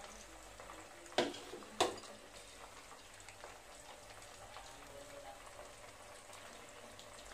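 Marinated chicken pieces deep-frying in a pan of hot oil, a steady fine crackling sizzle. Two sharp clacks about a second in are the loudest sounds.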